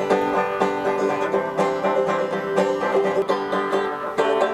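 Banjo being picked, a quick run of plucked notes.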